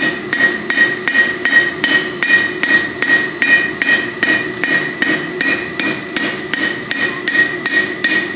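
Hand hammer striking red-hot steel on the horn of an anvil in a steady rhythm of about three blows a second, each blow leaving a bright ringing tone.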